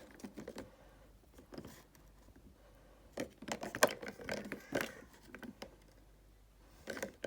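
Small plastic toy doll being handled: scattered light clicks, taps and rustles, busiest in the middle.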